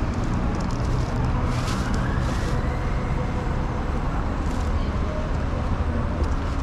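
Steady low rumble of car and road noise, with a whoosh of noise that swells and fades in the first few seconds.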